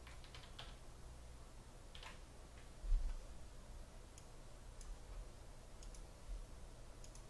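A few scattered light clicks and ticks, with a soft low bump about three seconds in, over a steady low hum.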